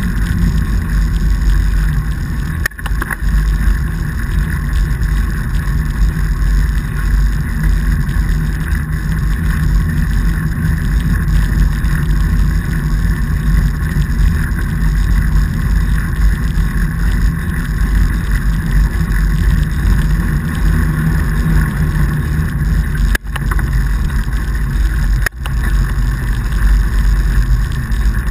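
Steady loud rumble of a fatbike rolling over packed snow, picked up by a bike-mounted action camera: tyre noise and ride vibration mixed with wind on the microphone. It dips briefly three times.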